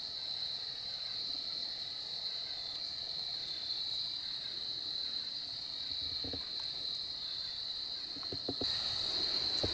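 Evening insect chorus in woodland: a steady, high-pitched buzz that does not let up. A few faint knocks come in the second half.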